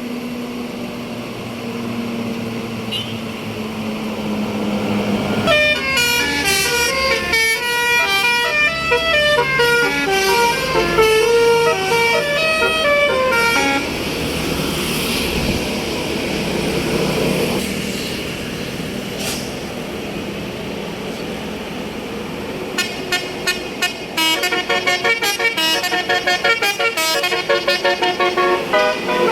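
Bus telolet horn, a Basuri multi-tone horn, playing fast melodies of short stepped notes over a bus engine running: one long tune about a third of the way in, and a quicker, choppier run of notes near the end.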